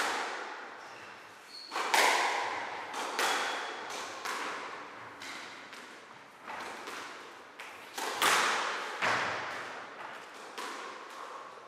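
Squash rally: the ball cracking off rackets and smacking the walls and floor, a string of sharp knocks about one to two a second, each echoing in the enclosed court.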